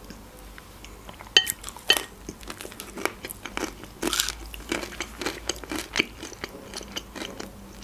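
Close-up crunching and chewing of a bite of pizza crust, many short crisp crackles. About a second and a half in come two light clinks of a metal spoon set down in a glass soup bowl.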